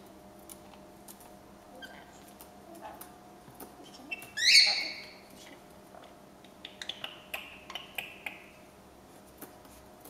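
Rainbow lorikeets clicking and tapping about on a benchtop, with one loud harsh screech about halfway through, then softer chattering calls among more clicks.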